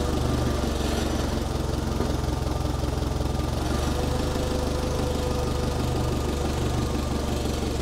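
Allis-Chalmers FP-40 forklift's carbureted engine idling steadily. The steering is being turned, and the governor holds the idle against the added load.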